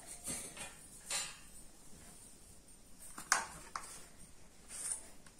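Handling noises from an opened set-top box's metal chassis being shifted about on a carpet: a few soft rustles and scrapes, a sharp click just over three seconds in, and a smaller click half a second later.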